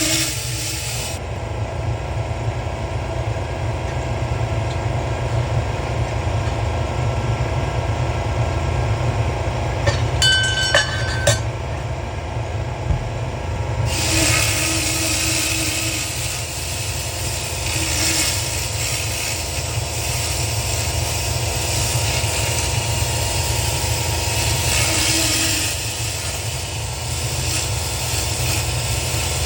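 Pulsed fiber laser cleaning weathered brass: a hissing crackle that swells and fades over a steady low hum, with a few short beeps about ten seconds in.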